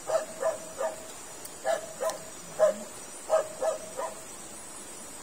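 Short, pitched animal calls, about nine in all, mostly in quick groups of two or three, like a yipping bark.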